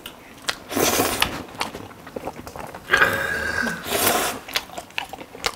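Close-up eating sounds from people eating tteokbokki and noodles: two loud, breathy mouth noises, about a second in and about three seconds in, the second lasting about a second, with chewing and small clicks between them.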